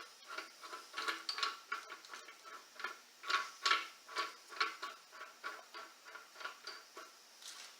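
Light metallic clicking, about two clicks a second, from the steel pieces of a wheel bearing press-and-pull tool (washer, nut and puck on the threaded rod) being handled and fitted together.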